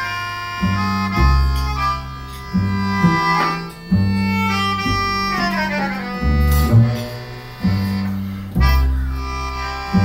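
Melodica playing a solo melody over plucked upright double bass, with a fast run falling in pitch about halfway through.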